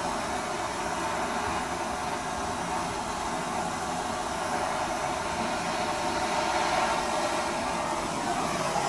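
Handheld blowtorch burning with a steady, even hiss.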